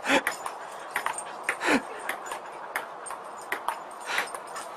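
Table-tennis ball clicking off the table and paddle in quick, irregular hits, about two a second. A dog gives a short bark at the start and a lower one about one and a half seconds in that falls in pitch.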